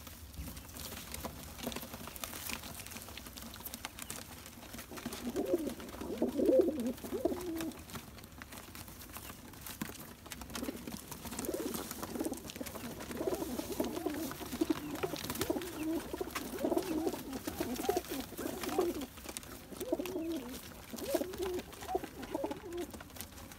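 Domestic pigeons cooing in a coop, in repeated low bouts: one about five seconds in, then almost without break through the second half.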